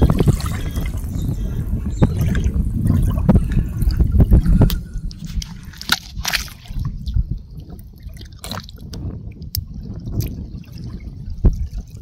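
Wet, soft tidal mud squelching and dripping underfoot, heavy for the first few seconds, then thinning to scattered small pops and drips.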